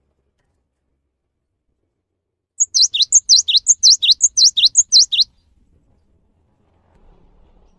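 Cinereous tit (gelatik batu) singing: about six quick repeats of a two-note phrase, each a short very high note followed by a note sliding down, starting about two and a half seconds in and stopping about two and a half seconds later.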